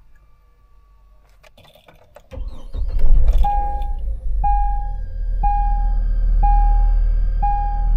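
Hummer H3 dashboard warning chime sounding about once a second, six times, over a low rumble that comes in about two seconds in, with a sharp knock shortly before the chimes begin.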